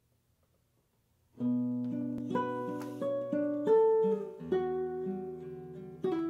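Nylon-string classical guitar played fingerstyle, coming in about a second and a half in after near silence: plucked notes and chords ringing over held bass notes.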